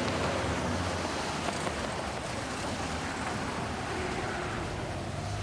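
Steady city street background ambience: an even rushing noise with a low hum of traffic underneath.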